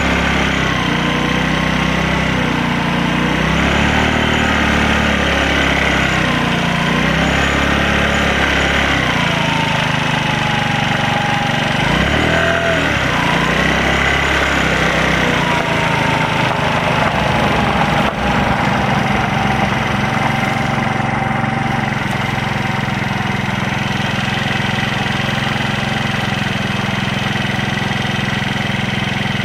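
Small scooter engine idling steadily, its speed wavering a little.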